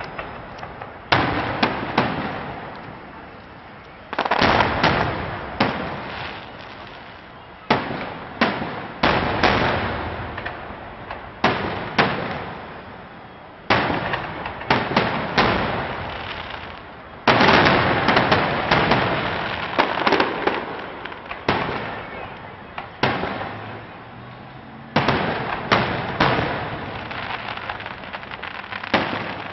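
Aerial firework shells bursting one after another, a sharp boom every second or two, each fading away before the next. A little past halfway a dense barrage of overlapping bursts follows in quick succession.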